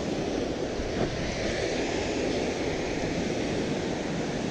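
Ocean surf breaking and washing over rocks, a steady rushing, with wind buffeting the microphone.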